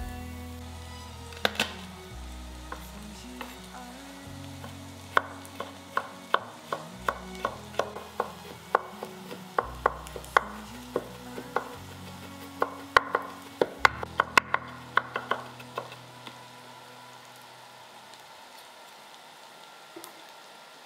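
Food sizzling as it fries in a pan, stirred with a utensil that clicks sharply against the pan about two or three times a second through the middle, then sizzling on its own near the end.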